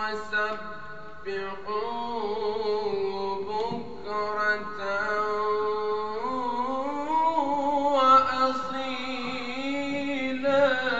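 A solo male voice reciting the Quran in a melodic chanted style, holding long ornamented notes that bend in pitch. It comes in phrases of a few seconds with brief breaks between them.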